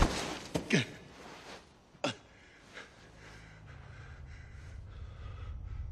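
A man panting and gasping for breath in short, regular puffs about twice a second, out of breath after running. The first second holds the tail of louder falling swept sounds, and a low steady hum grows underneath from about halfway.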